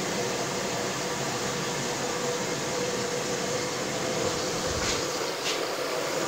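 LG Direct Drive washer filling with water: a steady rushing hiss of water coming in through the inlet valve, with a faint steady hum underneath.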